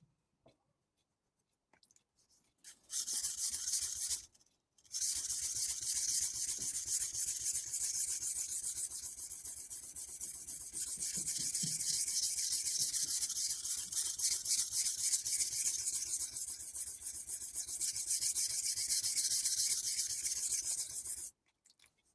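Santoku knife blade stroked rapidly back and forth on a wet whetstone, a steady rasping scrape. A short run of strokes comes a few seconds in, then a brief pause, then a long continuous run that stops abruptly near the end.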